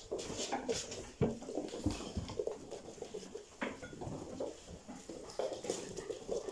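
White Swiss Shepherd puppies' paws and claws pattering and clicking on a wooden floor as they run about, with scattered small knocks.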